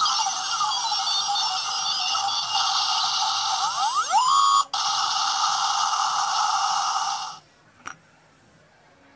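Homemade Kamen Rider Build trigger prop playing its electronic sound effects: a synthetic tone with curving, rising pitch sweeps, cut off briefly about four and a half seconds in, then a steady electronic whirr that stops about seven seconds in. A single click follows shortly after.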